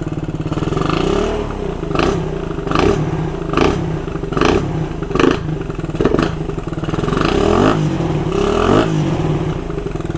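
Suzuki Raider 150's single-cylinder four-stroke engine idling and revved in repeated short throttle blips, about one a second, each rising and falling back to idle. It is running on a freshly fitted 32mm Koso-type OKO carburettor that has not yet been jetted.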